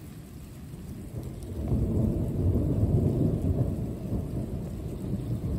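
Rolling thunder from a nearby thunderstorm: a low rumble that swells about a second and a half in, rolls on for a few seconds, eases off and builds again near the end.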